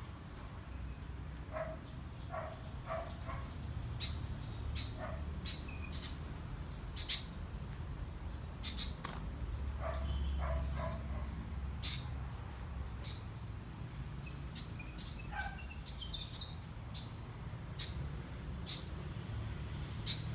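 Birds calling: a string of short, sharp high chirps roughly once a second, with clusters of lower call notes in between, over a steady low rumble.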